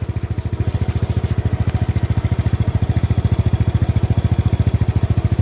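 Yamaha Mio Sporty scooter's single-cylinder four-stroke engine idling steadily, an even chugging of about a dozen beats a second.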